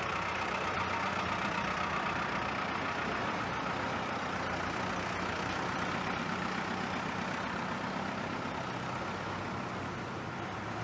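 Engine of a canvas-covered cargo truck running steadily as the truck drives along.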